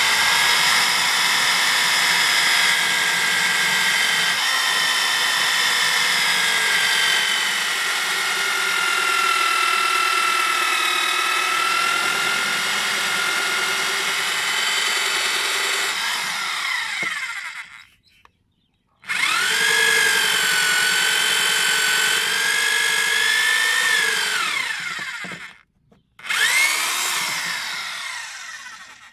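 Electric drill with a hole saw cutting through a plastic pipe: a steady motor whine for about seventeen seconds that winds down, then two shorter runs, the last tailing off near the end. The pitch shifts as the saw bites into the pipe wall.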